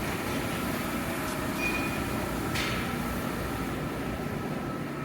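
Steady background din of a working sheet metal fabrication shop: machinery and ventilation running, with a short high tone a little over a second and a half in and a brief sharp noise about two and a half seconds in.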